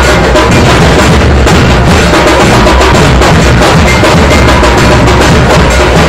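Dhol and tasha drums played loudly in a fast, continuous beat, deep dhol strokes under rapid sharp tasha strikes.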